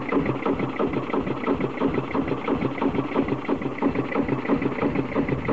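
Old single-cylinder stationary engine with twin flywheels running steadily, each firing stroke giving a regular, even beat.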